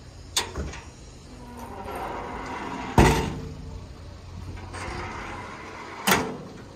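Sheet-metal engine access doors on a JCB JS205 excavator being swung shut and slammed, three bangs in all. The loudest comes about three seconds in, with lighter ones shortly after the start and near the end.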